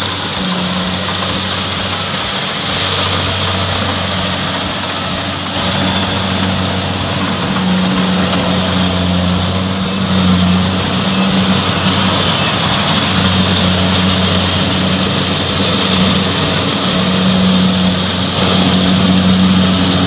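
Kubota rice combine harvester running steadily as it cuts and threshes standing rice: a constant low engine hum under the churning of its machinery.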